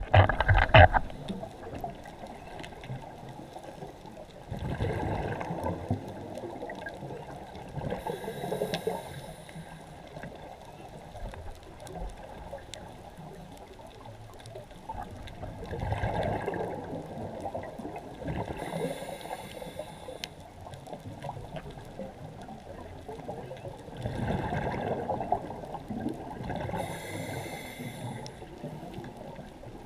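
A scuba diver breathing through a regulator, heard muffled through the camera's underwater housing: a drawn breath followed by a gurgling rush of exhaled bubbles, three times about ten seconds apart. A loud rustle in the first second.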